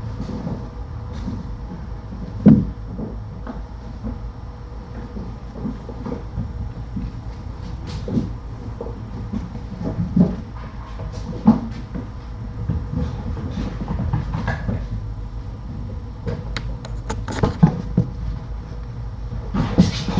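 Steady low hum with irregular soft thumps and knocks scattered through it, and a few sharper clicks.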